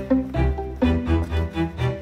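Background music with a steady beat: regular bass pulses under short repeated melodic notes.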